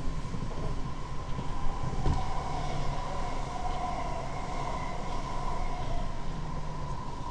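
Elevated metro train running, heard from inside the carriage: a steady motor whine over wheel-on-rail rumble. About two seconds in, a train on the other track passes close by with a thump, adding a second whine for a few seconds.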